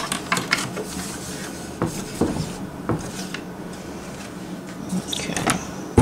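Scattered clicks and light knocks of hands handling the needle and presser-foot area of a Singer Fashion Mate 360 sewing machine, over a faint steady low hum, with a sharper knock at the very end.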